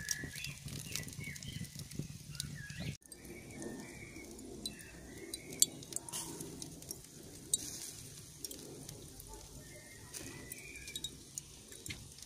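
Small birds chirping repeatedly in short calls, with occasional sharp pops and crackles from a charcoal grill cooking skewers. The sound cuts out briefly about three seconds in.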